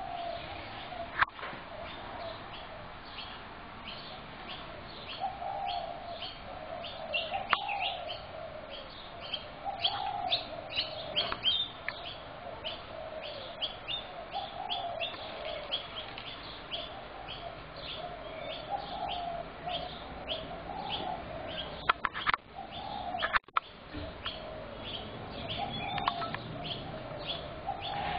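Spotted doves cooing over and over, a low phrase every second or two, against a steady stream of quick high chirps from small birds. A few sharp clicks stand out, once about a second in and a cluster about 22 to 24 seconds in.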